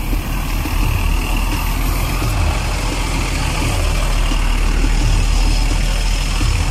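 A large bus engine idling close by: a steady low rumble with street traffic noise around it.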